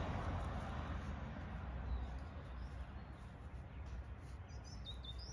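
Outdoor ambience: a steady low rumble, with a few short, faint high bird chirps near the end.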